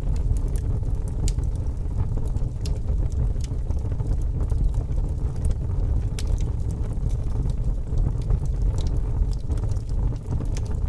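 Wood fire burning in a fireplace: a steady low rumble with scattered, irregular crackles and pops.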